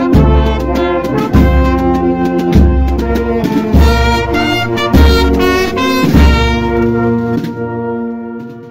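Brass band music with trumpets and trombones over a heavy bass drum beat about every 1.2 seconds; the drum stops about six seconds in and the band ends on a held chord that fades out.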